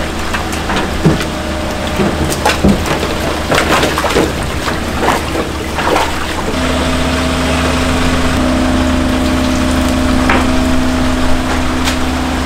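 Seawater splashing and sloshing in a plastic live-fish tank as a long-handled net is swept through it, with sharp splashes and knocks mostly in the first half. A steady pump hum runs underneath and grows louder, with a new steady tone, about six and a half seconds in.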